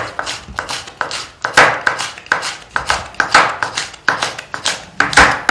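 Kitchen knife slicing a hot green chili pepper into rings on a wooden cutting board, the blade knocking on the board in an uneven run of cuts, about two or three a second.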